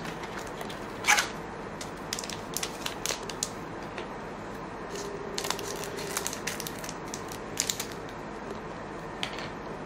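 Scattered crinkling and rustling of foil card-pack wrappers and trading cards being handled, with one sharper crackle about a second in.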